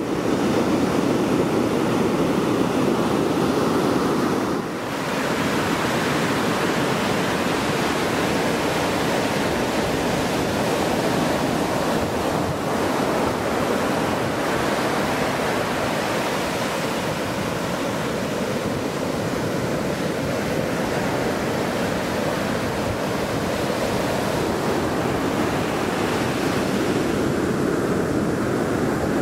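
Ocean surf washing in over sand and around driftwood, a steady rush of waves and foam that dips briefly about five seconds in.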